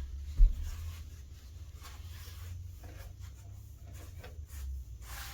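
Rubbing and light knocking as the leg parts of a Jack Frost animatronic are handled and fitted together, with one sharp thump about half a second in.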